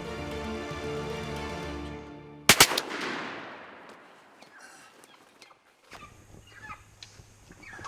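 Background music fades out, then two shotgun shots go off a fraction of a second apart, two hunters firing together on turkeys, with a long echoing decay. Faint outdoor sounds with a few short calls follow.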